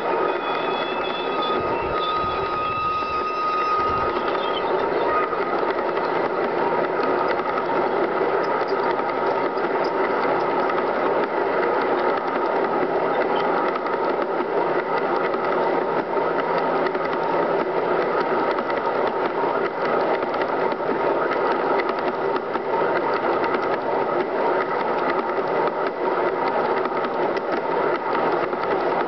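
G scale model coal hopper cars rolling past on outdoor track, their metal wheels giving a steady, continuous rattling clatter. A brief high pitched tone sounds between about one and five seconds in.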